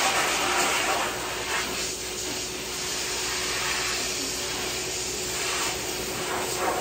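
A motor-driven air machine running steadily: an even whooshing noise with a constant hum under it.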